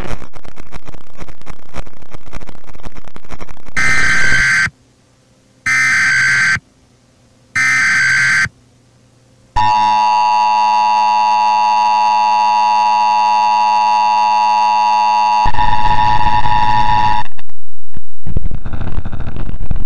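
Emergency Alert System broadcast signal on a degraded VHS-style track. Static crackle gives way to three short screeching data bursts about a second apart (the SAME header), followed by the steady two-tone attention signal held for about six seconds, which ends in harsh distorted noise near the end.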